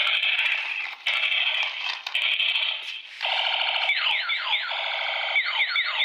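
Tinny electronic sound effects and music from a transforming robot toy car's small built-in speaker, with quick falling zaps about four seconds in and again near the end as the car changes into a robot.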